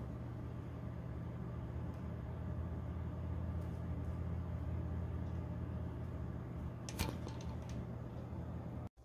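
A workshop machine's electric motor humming steadily, with a sharp click about seven seconds in; the sound cuts off abruptly near the end.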